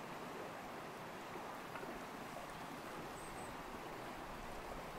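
Steady rush of a shallow limestone stream flowing over the streambed.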